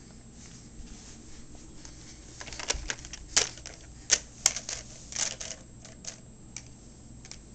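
Irregular light clicks and taps of a plastic toy train being knocked and pushed by a baby's hand.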